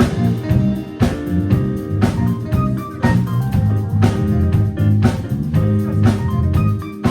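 A jazz band playing live, the full band in with a strong beat about once a second over sustained low notes.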